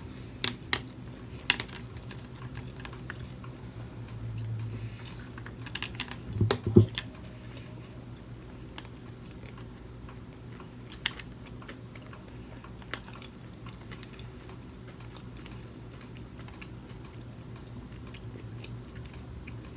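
Close-up chewing of a salmon and avocado sushi roll, with scattered small mouth clicks and a few louder knocks about six to seven seconds in, over a steady low hum.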